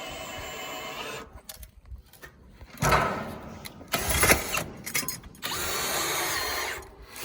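Electric drill driving a homemade sawmill log turner, running steadily for about a second, stopping, then running again for over a second near the end. Two loud knocks come in between, around three and four seconds in.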